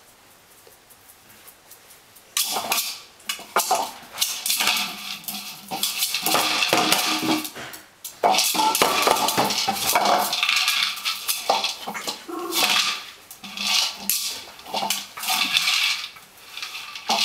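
Hard plastic Dog Pyramid treat-dispensing toy clattering and knocking on a ceramic tile floor as a puppy noses and tips it over, with treats rattling inside. The clatter starts about two seconds in and comes in bursts.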